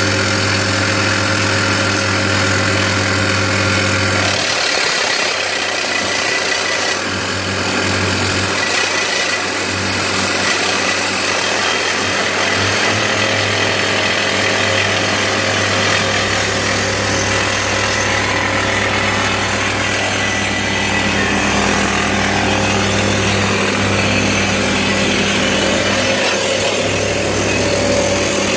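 Soosan hydraulic rock drill hammering continuously, over the steady running of the rig's engine.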